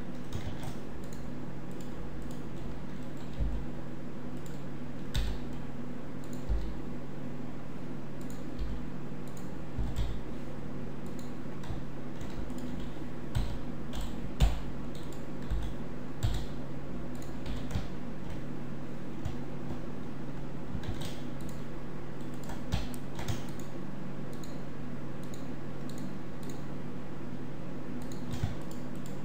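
Computer keyboard and mouse clicks, scattered and irregular, from hotkey-driven mesh editing in Blender. They sit over a steady low electrical hum.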